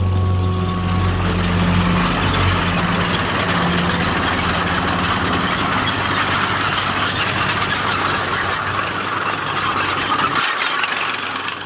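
G13 Jagdpanzer tank destroyer driving by: engine running under a dense, steady clatter of its steel tracks. The low engine rumble drops away near the end.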